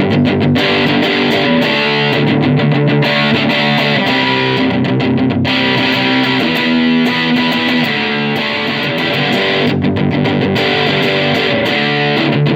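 Electric guitar, a Jackson Dinky with an EMG 85 bridge pickup, played through a tweed 4x10 valve amp with 5881 power tubes, on the amp's second channel with the volume at about six and the master at about two. Continuous rhythm playing with a few short stops.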